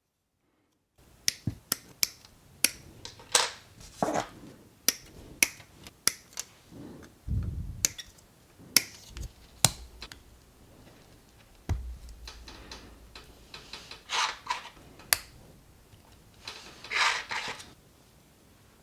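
Plastic model kit parts being handled and assembled: irregular sharp plastic clicks and snaps. There is a dull knock about seven seconds in and a couple of longer scraping rustles near the end.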